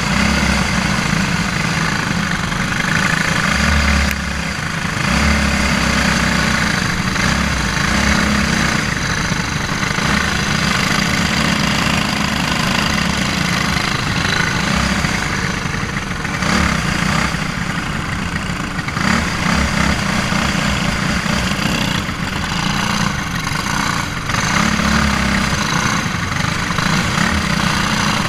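Briggs & Stratton Animal single-cylinder four-stroke kart engine running hard under race load, heard onboard the kart, dipping briefly a few times as the throttle eases for corners.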